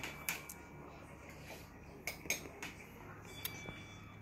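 Metal spoons clinking against dishes and ice cream cups during eating: about five light, sharp clicks scattered through, a couple with a brief ring.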